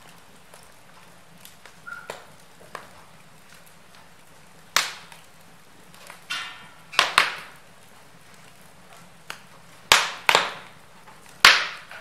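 Wood fire burning in an open fireplace, crackling with sharp pops from the logs: a few small ones early, then louder snaps about five, seven, ten and eleven and a half seconds in, some in quick pairs, with a brief hiss a little after six seconds.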